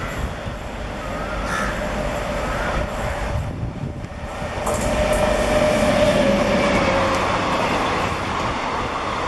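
Passenger express hauled by a WAP-7 electric locomotive passing through a station at speed: a steady rumble of wheels on rail. It grows louder about halfway through as the coaches go by close at hand.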